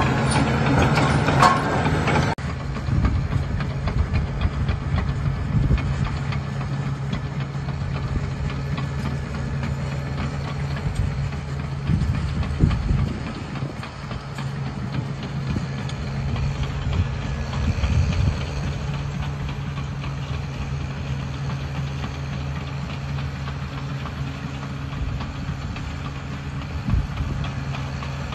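Caterpillar D6R crawler dozer working: its diesel engine runs steadily while the steel tracks clank and rattle. A denser, louder clatter in the first two seconds drops off suddenly, leaving the steadier engine note and track clatter.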